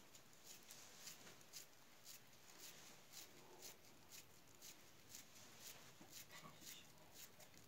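Faint, irregular soft clicks of damp bulgur dough being pressed and hollowed between the fingers to form an içli köfte shell.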